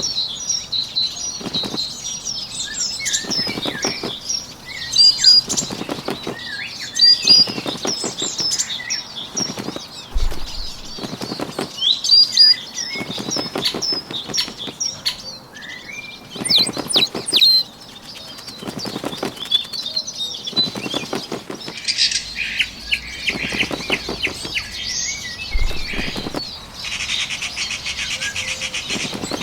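Sound-effect wing flaps of a small bird in short bursts repeated every second or two, over a background of songbirds chirping. A buzzy trill comes near the end.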